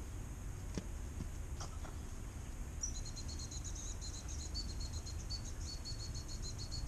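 Dog whistle blown as a rapid, even string of short high pips, starting about three seconds in and running for about five seconds: the recall signal calling a puppy back.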